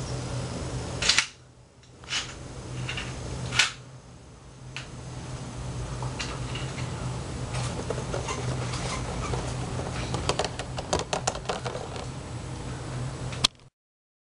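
A Beyblade spinning top whirring on a plastic stadium floor, with scattered sharp clicks. A quick run of clicks comes about ten seconds in, once the top has started to wobble. The sound cuts off suddenly just before the end.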